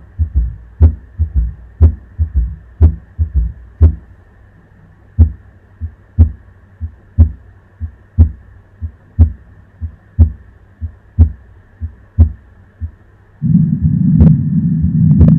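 Heart sounds played on a cardiac auscultation simulator. The beats come quickly and unevenly for the first few seconds, then settle to roughly one lub-dub a second over a faint hiss. A loud, low, steady rumble comes in near the end.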